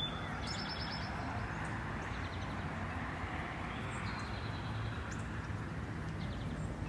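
Outdoor ambience of a steady rushing background noise, with a bird giving a short high trill a few times, near the start and again around the middle.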